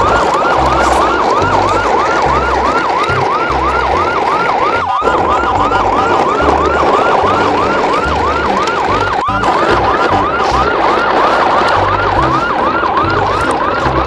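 Siren sound effect wailing in quick, repeated rising sweeps, about three a second, over a low pulsing bass.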